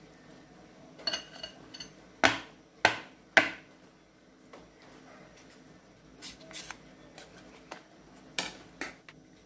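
A metal spoon scraping filling onto dough, then three sharp knocks about half a second apart, followed by softer scattered plastic clicks as a dumpling press is squeezed shut and opened.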